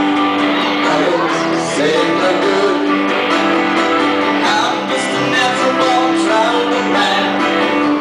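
Live band playing a song: strummed guitars over keyboard and drums, loud and steady.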